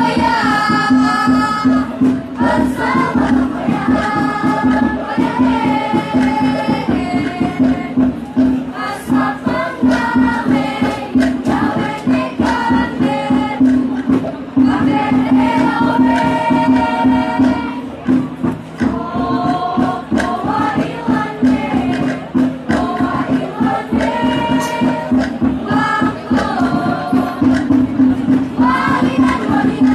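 A group of voices singing a traditional Minahasan Maengket song in chorus, in phrases of a few seconds each, over a steady low sustained tone and light percussion strokes.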